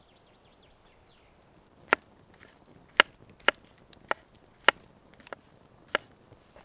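Wood being chopped: seven sharp, ringing strikes at an uneven pace, starting about two seconds in.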